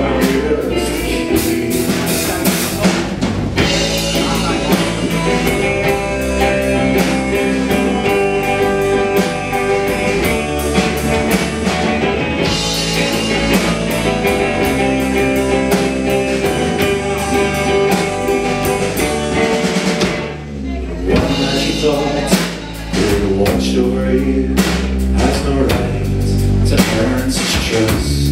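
Live rock band playing: electric guitar, bass guitar and drum kit. The drums drop out briefly about twenty seconds in, then come back.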